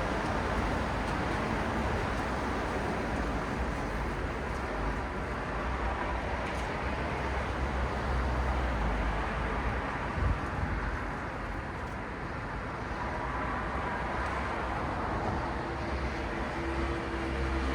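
Steady city road traffic: the continuous hiss and low rumble of cars and heavier vehicles passing, with a brief thump about ten seconds in.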